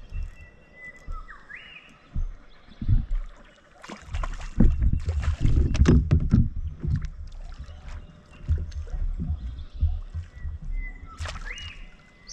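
Irregular knocks and bumps on a Hobie kayak's hull with some water sloshing, busiest between about four and seven seconds in. A short rising whistle comes about a second in and again near the end.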